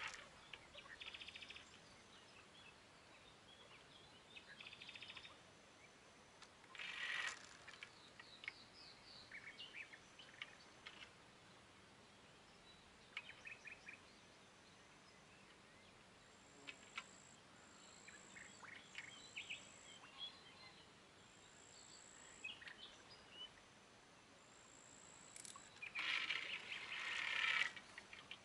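Faint outdoor ambience with small birds chirping and calling on and off, including a repeated high thin whistle. A brief rasping noise comes about a quarter of the way in, and a louder one lasting about two seconds near the end.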